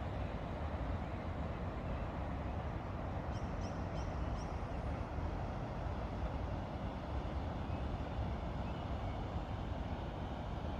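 Dawn outdoor ambience: a steady low background rumble, with a bird giving four short high chirps about three to four and a half seconds in.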